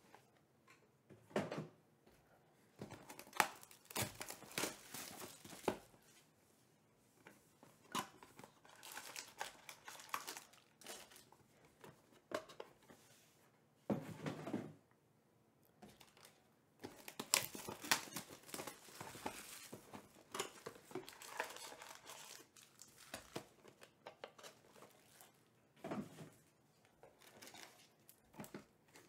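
Foil-wrapped trading card packs and cardboard card boxes being handled: crinkling and rustling in irregular bursts, with some tearing and short pauses between.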